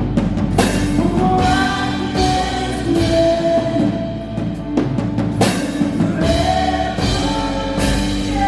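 Live worship band playing an instrumental passage: a drum kit with repeated hits and several cymbal crashes over held, sustained chords.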